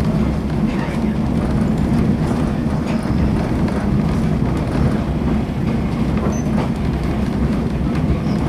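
Vintage passenger train rolling along the track: a steady, loud rumble of wheels and cars with faint scattered clicks.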